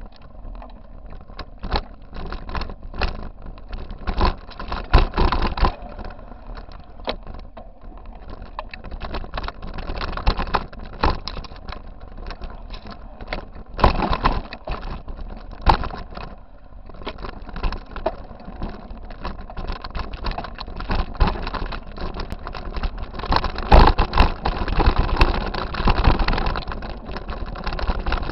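Mountain bike rolling over a rocky dirt trail, heard through a handlebar-mounted camera: constant rattling and knocking from the bumps, with rougher stretches of heavy jolts.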